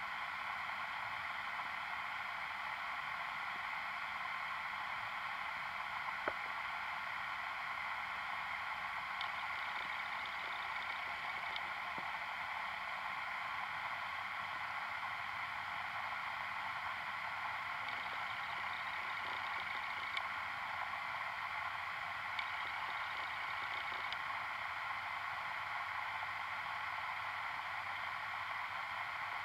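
Steady hiss of an underwater recording, heard through a camera's waterproof housing, with a few faint clicks now and then.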